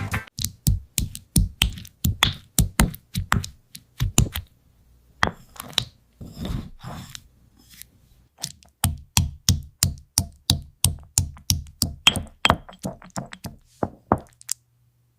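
Candy crunching: a run of sharp cracks and taps, about two to three a second, with short breaks about a third and halfway through.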